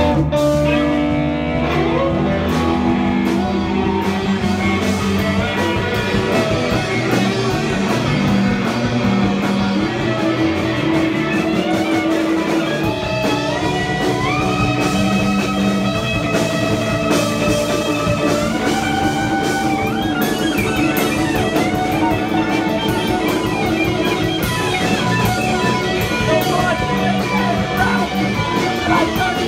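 Live punk band playing an instrumental passage with no vocals: electric guitar, bass and drums, with a fiddle. About halfway through, long held high notes climb in steps.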